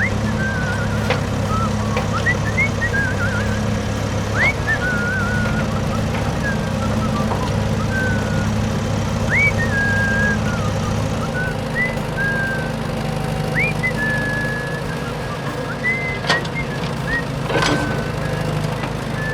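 A steady engine-like drone from an RC vehicle, whose pitch shifts about eleven seconds in. Over it, short whistled notes repeat, each rising quickly and then holding, with a few sharp clicks.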